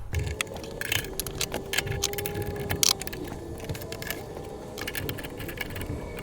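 Repeated metal clicks and clanks of a wood lathe chuck and blank being handled and fitted onto the lathe, over a faint steady tone.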